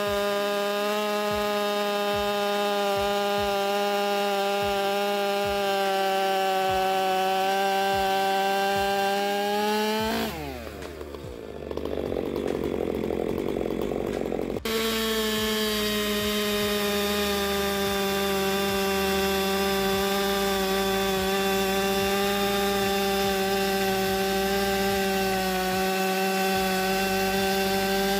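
Stihl 462 chainsaw with a dual-port Bark Box muffler cutting through a tan oak log at full throttle, steady under load. About ten seconds in it breaks through the log, revs up briefly and winds down off the throttle. A few seconds later the full-throttle cutting sound cuts back in abruptly and runs on.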